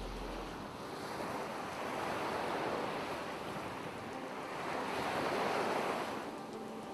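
Ocean surf washing onto a beach, a steady hiss of water that swells twice as waves break and then draws back.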